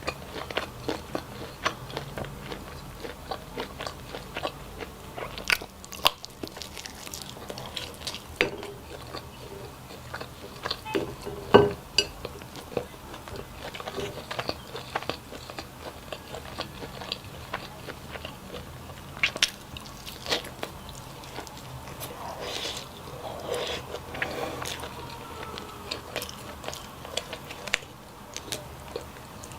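A person eating close to the microphone: biting and chewing with irregular crunches and clicks, the loudest a little before twelve seconds in.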